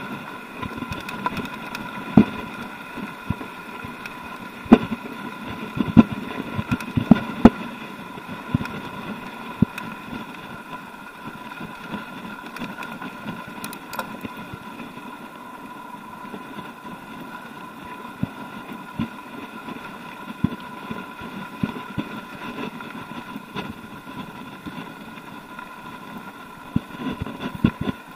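Mountain bike rolling over a loose gravel track: a steady hum under a clatter of sharp knocks and rattles as the bike jolts over stones, the knocks thickest in the first eight seconds or so and again near the end.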